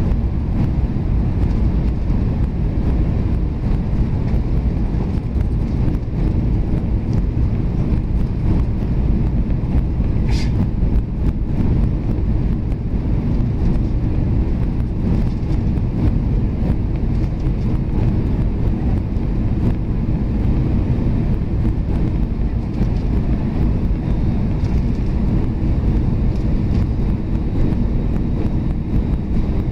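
Steady cabin noise of an Airbus A320 on its approach: the jet engines and rushing airflow, a deep, even roar heard through the fuselage beside the wing. A brief high-pitched chirp cuts through about ten seconds in.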